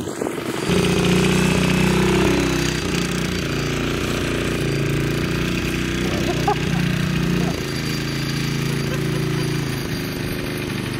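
Small engine of a sickle bar mower running steadily under load, with a rapid mechanical clatter.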